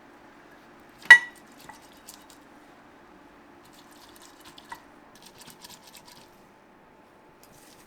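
Metal kitchenware clinking: one sharp clank about a second in, then a few lighter clicks and small taps, over a low steady hum.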